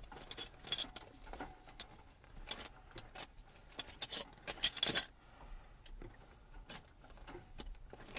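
Metal wrenches and hand tools clinking against each other as hands rummage through a tool roll, an irregular run of small clinks and rustles, the loudest about five seconds in.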